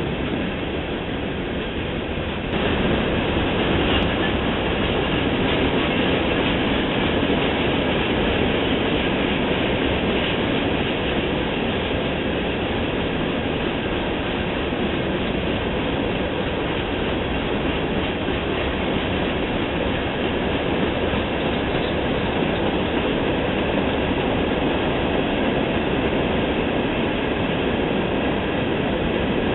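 CSX freight train of open hopper cars rolling past: a steady rumble and rattle of steel wheels on the rails, stepping up louder about two and a half seconds in.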